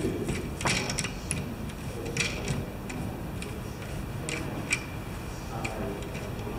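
Light, irregular metallic clicks and ticks as the loosened bearing lock nut is spun off the axle of a Shimano Nexus 3-speed hub by hand, metal parts tapping against each other.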